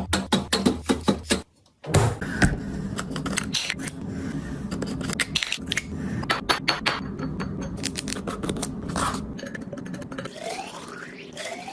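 Drink containers and their packaging being handled: a quick run of clinks, taps and scrapes, with a short break of silence about one and a half seconds in.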